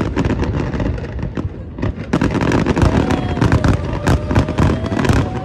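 Fireworks display: aerial shells bursting in quick succession with bangs and crackling, coming thick and fast from about two seconds in.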